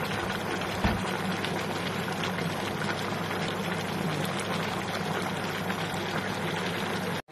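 A pot of jackfruit and pork ribs in coconut milk and water simmering on the stove: a steady bubbling hiss over a low hum. There is a soft knock about a second in.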